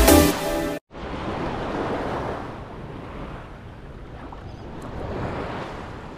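An electronic dance-music track cuts off abruptly just under a second in, giving way to gentle surf washing in shallow water with some wind on the microphone, swelling and easing in slow waves.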